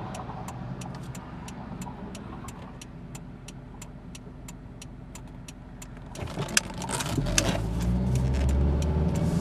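Inside the cabin of a 2005 Honda Accord, its 2.4-litre K24 four-cylinder runs at low revs while a turn-signal relay ticks steadily about three times a second. About six seconds in the ticking stops and the engine and road noise rise as the car accelerates, the intake louder through its K&N filter with the resonator removed.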